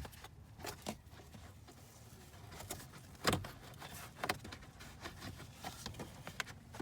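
Scattered light knocks, scrapes and rustles of a new cabin air filter being pushed and slid into its plastic housing, the loudest knock about three seconds in.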